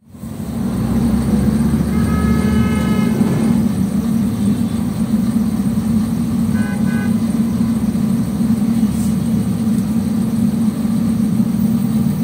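Steady low hum and rumble of a stationary tram and the street traffic around it. A car horn sounds for about a second, about two seconds in, and two short beeps follow about halfway through.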